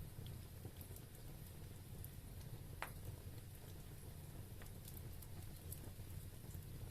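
Wood fire burning in a fireplace: a low steady rumble of flames with sparse faint crackles, and one sharper pop a little under three seconds in.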